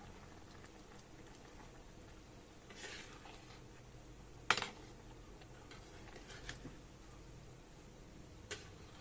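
Kitchen utensil clinking against a cooking pot: one sharp clink about halfway through, with a few fainter knocks before and after.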